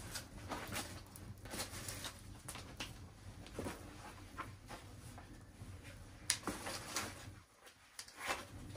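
Open wood fire crackling with irregular sharp pops, with knocks and scrapes as two large logs are laid onto it.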